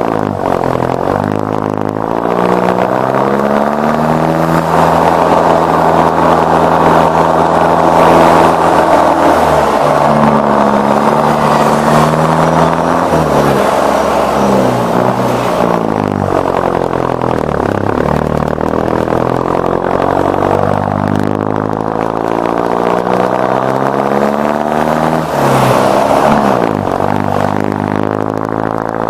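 Mercedes-Benz OF-1418 bus's six-cylinder turbodiesel engine pulling under load, its pitch climbing and then dropping back at each gear change, several times over.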